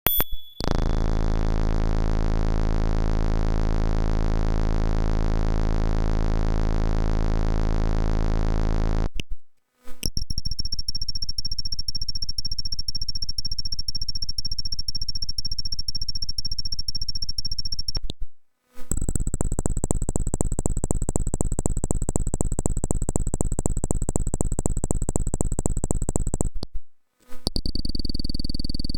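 Synthesizer sound-effect tests: a steady low electronic drone of stacked tones, then, after short breaks, rapid-pulsing electronic buzzes with thin high whistling tones. Three breaks cut the run into four blocks of about eight to nine seconds, the last starting near the end.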